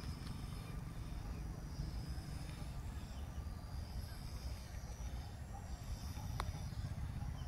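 Outdoor ambience: a steady low rumble with faint high chirping, and one sharp click about six seconds in.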